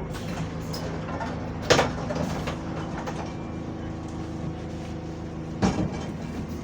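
City bus engine running steadily, heard from inside the passenger cabin, with two sharp clunks, one about two seconds in and one near the end.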